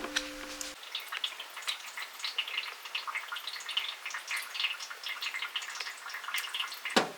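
Food frying in a pan: light, irregular crackling and popping of hot oil.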